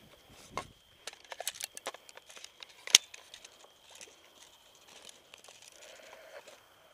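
Scattered light crackling and rustling, with one sharp click about three seconds in.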